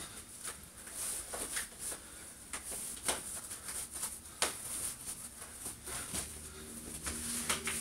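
Faint rustling of clothing with scattered light clicks and ticks at irregular moments, as tight pants are pulled up and adjusted by hand over a fishnet bodystocking.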